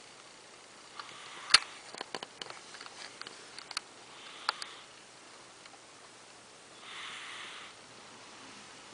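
A sleeping cat snoring: hissy breaths come about every three seconds, the last one longest. Small sharp clicks are scattered through the first half, with the loudest a single click about a second and a half in.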